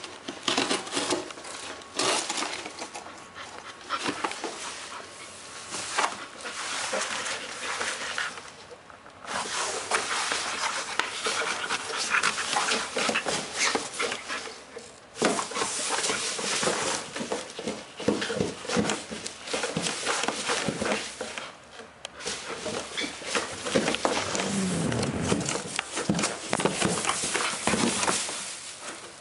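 Bull terrier puppy playing with a big cardboard TV box: dense crinkling, scraping and knocking of cardboard in bouts with short pauses, along with the dog's panting.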